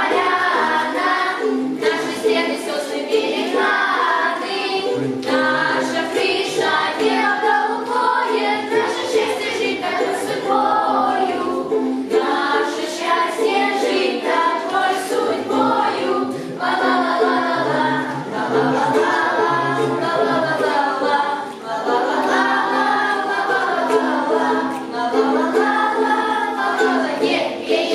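A group of voices singing a song, accompanied by strummed ukulele chords.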